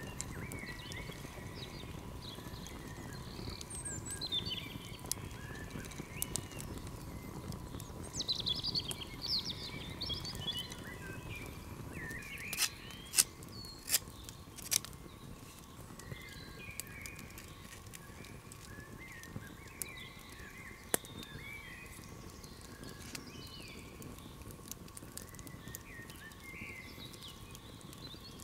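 Small songbirds chirping and singing over the low crackle of an open wood campfire. A few sharp cracks stand out near the middle.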